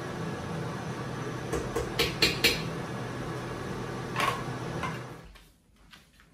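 Kitchen clatter: a few sharp knocks of dishes or a cupboard door over a steady background hum. The hum fades away about five seconds in.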